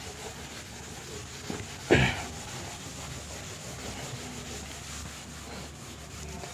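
Hand-held eraser rubbing over a whiteboard, wiping off marker writing. A single short thump about two seconds in.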